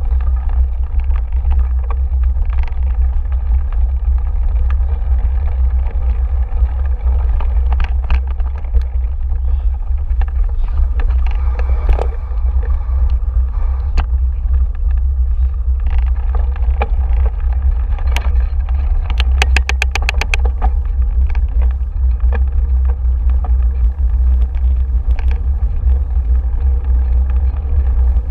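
Steady low rumble of wind buffeting a bike-mounted camera's microphone while riding a bumpy dirt trail, with scattered knocks and rattles from the bike. About two-thirds through there is a quick run of about a dozen rapid clicks.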